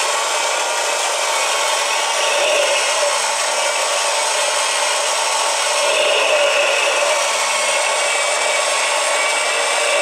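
Motorized 1:4 scale Haynes Porsche flat-six boxer model engine running steadily, its small electric motor driving the plastic pistons, valves and toothed timing belts.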